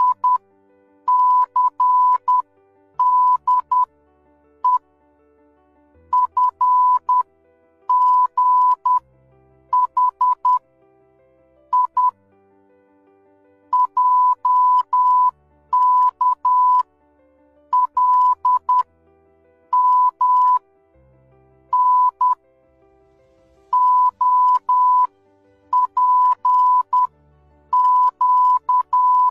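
Morse code sent as beeps: one steady, fairly high tone keyed on and off in short and long pulses, grouped into letters with pauses of about a second between groups.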